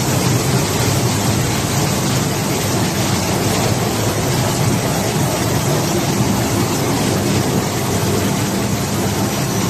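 Machinery of a maize flour milling plant running steadily: a loud, even rushing noise over a low hum.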